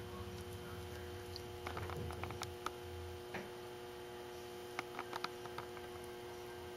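Faint small clicks and taps from handling a handheld pocket microscope, in a cluster about two seconds in and another about five seconds in, over a steady low hum.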